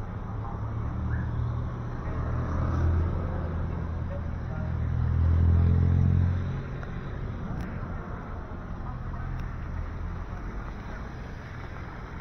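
Cars driving past on a wet street. A vehicle's engine hum builds and is loudest about five to six seconds in as it passes close, then drops away, over a steady hiss of tyres on wet asphalt.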